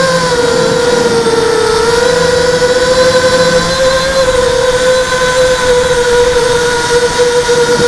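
A ZMR hexacopter's electric motors and propellers whining steadily in flight, heard through its onboard camera, over an even rushing noise. The pitch sags slightly about a second and a half in, then climbs back and holds.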